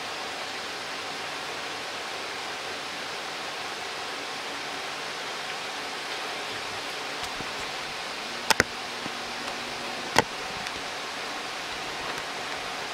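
Steady, even background hiss, with a few sharp clicks of chopsticks against a plate as food is arranged on it: a quick pair about eight and a half seconds in and one more about ten seconds in.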